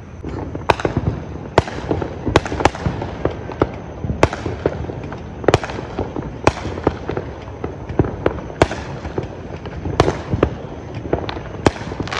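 Fireworks going off all around: a dozen or more sharp bangs and pops at uneven intervals, some near and loud, others distant, over a continuous low rumble of far-off bursts.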